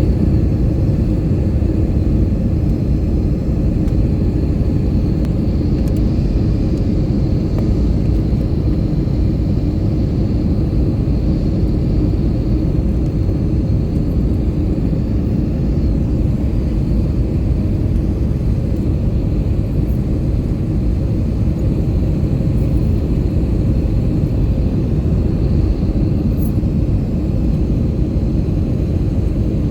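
Steady cabin noise of an airliner in flight: the engines and the airflow make an even, low noise that does not change.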